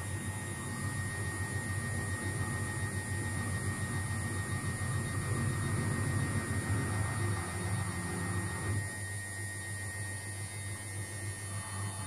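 Luxor WM 1042 front-loading washing machine running, a steady hum from its motor and turning drum. The sound thins out and gets a little quieter about nine seconds in.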